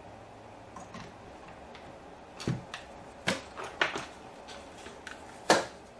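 A scattered series of clicks and knocks from a phone and tools being handled on a workbench, the loudest near the end.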